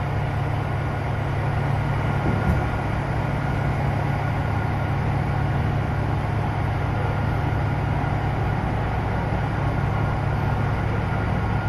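Steady low hum of an idling vehicle engine, unchanging throughout, with one faint knock about two and a half seconds in.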